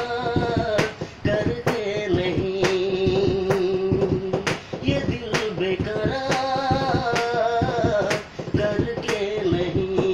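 A man singing a Hindi film-song melody unaccompanied, holding long wavering notes, over a sharp tap or snap about once a second keeping the beat.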